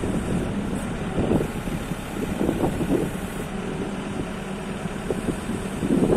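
Diesel engine of an MST M644 Plus backhoe loader running steadily.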